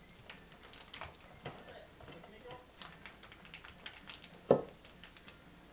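A cat eating wet food from a bowl: a run of small, quick clicks and smacks of chewing and licking, with one sharp knock about four and a half seconds in.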